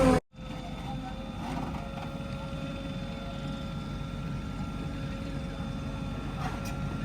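Diesel engine of heavy earthmoving machinery running steadily, heard after a brief sudden dropout just at the start.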